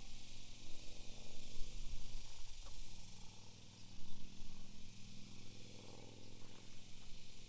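Low, steady motor drone, like a distant vehicle engine, shifting in pitch a couple of times, with a faint, fast, evenly spaced high ticking throughout.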